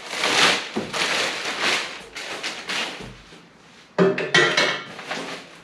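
Crinkling and rustling of a clear plastic bag as a pressure washer's metal frame handle is pulled out of it. About four seconds in there is a sudden clatter with a brief ringing as the handle is set down on the concrete floor.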